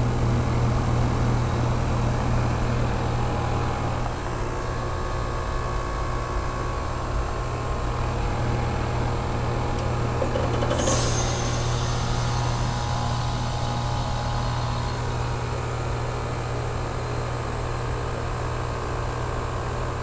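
Trane XE1000 Weathertron heat pump outdoor unit running with a steady low compressor hum. About eleven seconds in comes a sudden hissing whoosh that fades over a few seconds: refrigerant rushing as the reversing valve shifts and the unit changes mode at the end of its defrost cycle.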